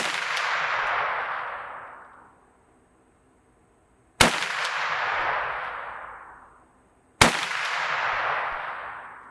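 Three shots from a Ruger 99/44 Deerfield .44 Magnum carbine: one right at the start, then about four seconds and three seconds apart. Each crack is followed by a long echo that rolls away over about two seconds.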